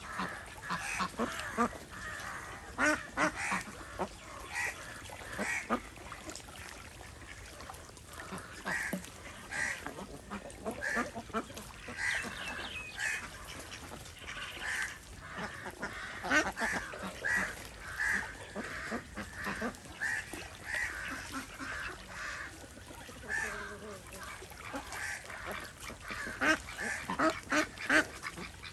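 A flock of domestic ducks quacking over and over, short calls from several birds overlapping, with busier bursts of calling every few seconds.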